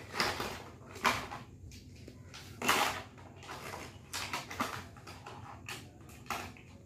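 A plastic toy dump truck and its clear plastic wrapping being handled, making irregular short knocks and crinkles about once or twice a second.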